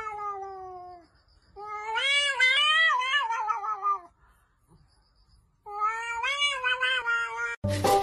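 Cat yowling: three long, wavering, drawn-out calls with short pauses between, the first two sliding down in pitch as they end.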